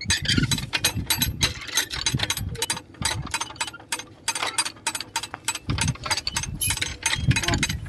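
Hand-cranked geared winch ratcheting as it is wound, a rapid run of sharp clicks with short pauses, hauling in the rope used to string a power-line conductor.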